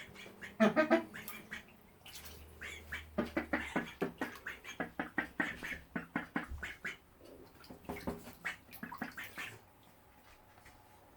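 Young domestic ducks quacking: a loud pair of calls near the start, then a long run of rapid, short quacks that stops a little before the end.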